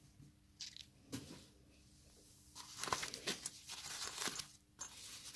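White foam packing sleeve being handled and pulled open, rustling and crinkling in a run of short bursts from about two and a half seconds in, after a quieter start.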